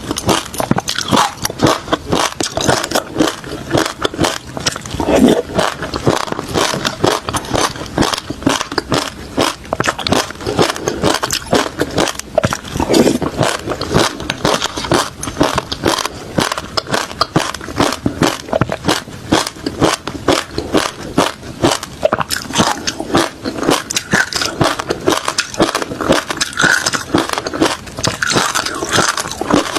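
Refrozen crushed ice and shaved ice being bitten and chewed close to the microphone: dense, continuous crunching made of many sharp cracks.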